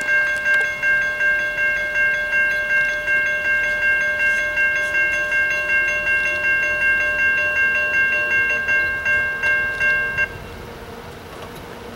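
Safetran Type-3 electronic crossing bells ringing with rapid, evenly repeated dings, then cutting off suddenly about ten seconds in, once the crossing gates are fully down.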